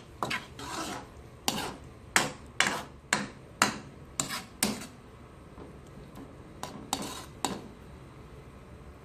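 A cooking utensil stirring green beans and ground meat in a pan, scraping and knocking against the pan about twice a second, then slowing to a few strokes later on.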